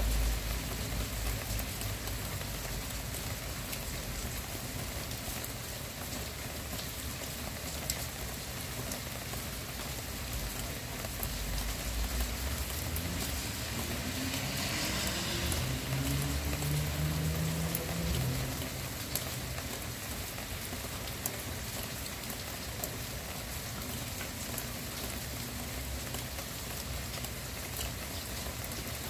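Steady rain falling, an even hiss with scattered drop taps. About halfway through, a low rumble that rises in pitch swells and then fades back under the rain.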